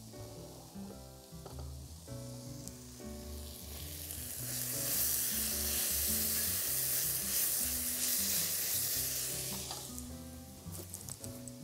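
Shawarma meat strips sizzling in a hot frying pan as they are stirred with tongs to brown them. The sizzle swells about four seconds in, stays loud for several seconds and then dies down, with a few light clicks near the end, over soft background music.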